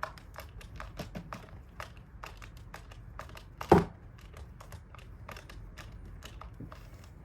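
Light clicks and taps from hand work on a Traxxas Raptor R RC truck's gear cover and screw, with one louder knock just past halfway.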